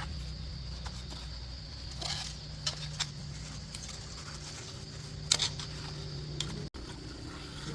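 A steady low machine hum, with a few short sharp clicks and taps over it, the loudest about five seconds in.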